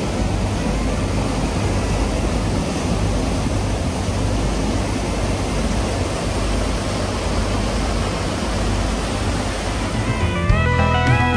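A steady, even rushing noise with faint music beneath it. A plucked-guitar music track comes in about ten seconds in.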